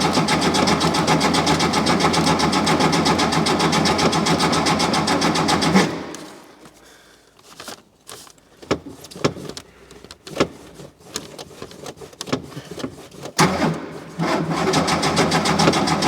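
Porsche 911's air-cooled flat-six being cranked on the starter motor without catching, the fuel lines still refilling after being drained. The cranking stops about six seconds in, a few clicks and knocks follow, and cranking starts again near the end.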